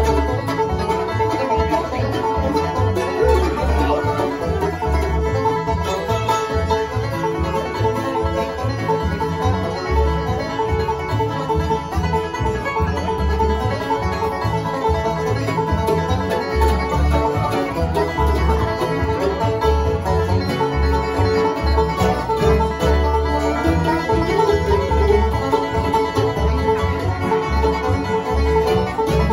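Acoustic bluegrass band playing an instrumental tune live, with five-string banjo, fiddle, mandolin, acoustic guitar and upright bass.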